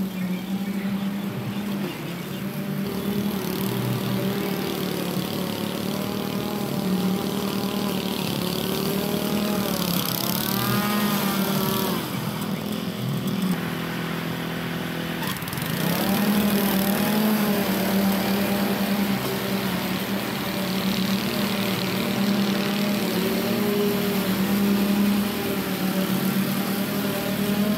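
Gas push lawn mower engine running steadily while cutting tall grass. Its pitch dips and recovers twice, about ten and fifteen seconds in.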